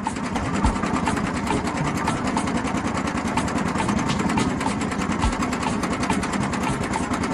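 Small engine of a miniature DIY farm machine running steadily at high speed, a fast, even clatter of ticks.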